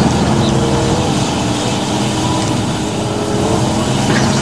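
John Deere 250G tracked excavator's diesel engine running steadily while its grapple arm works.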